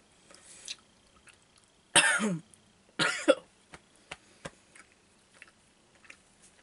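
A person coughs twice, about a second apart, each cough short and harsh with a little voice in it, followed by a few faint small clicks.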